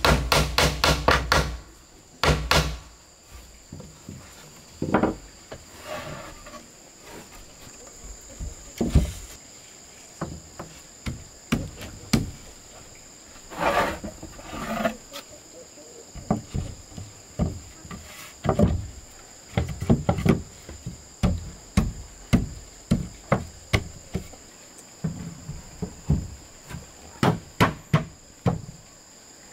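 Hammer blows on wood: a quick run of strikes at the start, then scattered knocks and taps through the rest. Insects drone steadily and high-pitched underneath.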